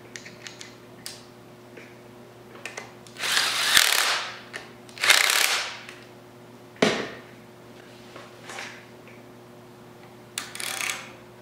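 Ratchet wrench clicking in four short bursts, tightening the bolts on a Triumph Spitfire camshaft timing gear. The longest burst comes about three seconds in and the last near the end, with small metal clicks between.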